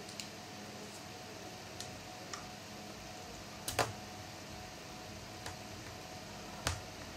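Scattered light clicks and taps of small laptop parts and screws being handled during disassembly, with a louder double click near the middle and another sharp click near the end, over a faint steady hum.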